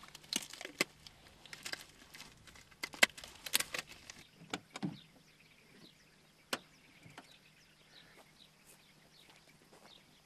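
Latex glove being pulled on and stretched over the hand: a string of sharp snaps and squeaks in the first five seconds, then a single sharp click about six and a half seconds in.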